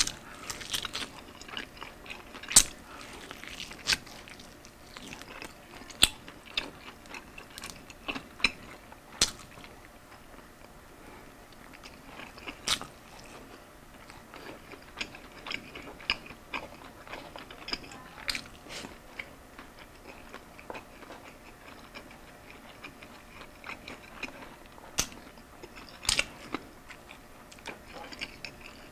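Biting and chewing into a crispy fried chicken wing coated in salted egg sauce: irregular sharp crunches spaced a second or more apart, with softer chewing between.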